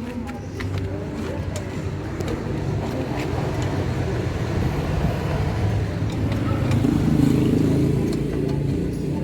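A car on the move: a steady low engine and road rumble that grows somewhat louder toward the later part.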